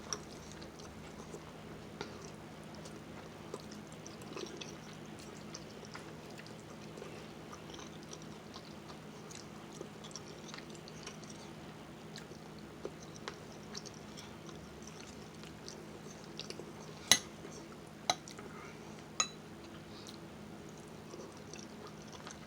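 Quiet eating sounds: soft chewing and mouth noises over a steady faint hiss and hum, with three sharp clicks near the end.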